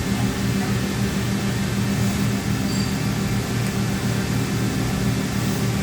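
Johnford HT-60-2D CNC turning center running under power: a steady machine hum with several low held tones.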